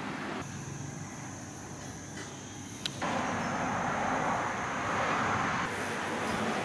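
Steady outdoor background noise, a hiss with a faint steady high whine. A single sharp click comes just before it steps louder about three seconds in.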